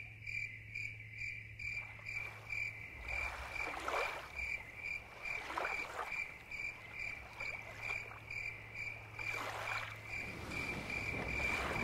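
Crickets chirping steadily at about three pulses a second. From about two seconds in, small waves lap in soft swells.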